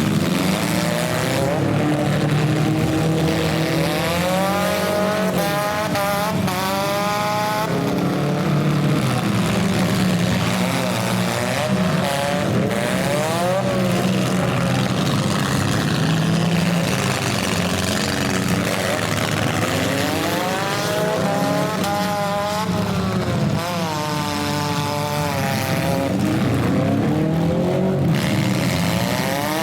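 Stock compact cars' engines running hard in a demolition derby, revving up and down again and again over a steady engine drone, as the cars rush back and forth.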